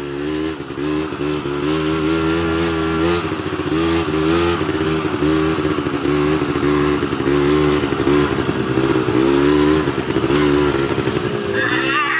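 ATV engine running under way, its pitch rising and falling again and again as the throttle is opened and eased, over a steady rushing noise.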